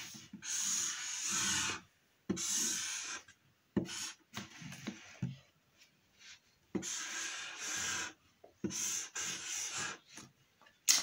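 Marker tip rubbing across paper on a tabletop: a series of rasping strokes, each about a second long, with short pauses between them.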